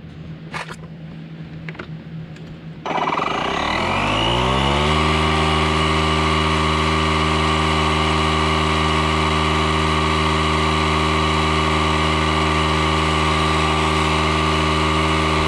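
DeWalt cordless tire inflator's motor and compressor starting up about three seconds in, rising in pitch as it spins up, then running steadily while it pumps up the repaired tire. A few light clicks come before it starts.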